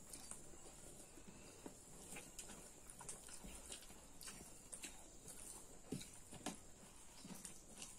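Faint eating sounds from two people eating curry and rice by hand: irregular soft clicks and smacks of chewing, a few each second.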